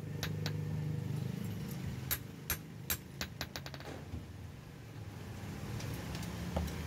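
Hand hammer striking a leaf-spring steel blade on a block anvil: a few separate sharp strikes, then a quick run of lighter taps about three seconds in. Under them runs a steady low engine-like hum.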